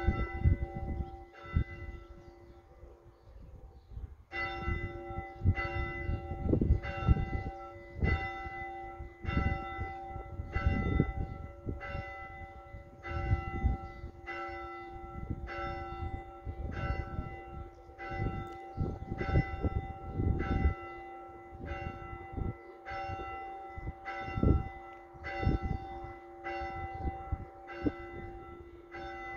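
A single church bell tolling, struck about once a second with each stroke ringing on into the next. The strokes are fainter at first and grow louder about four seconds in.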